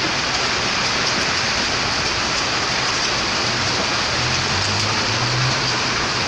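Hail and rain falling heavily, a steady dense hiss and patter. A low hum joins in for a second or two about two-thirds of the way through.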